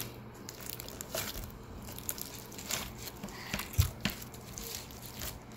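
Hands squeezing and kneading a lump of homemade glitter slime: soft, irregular squelches and crackles, with a dull knock about four seconds in.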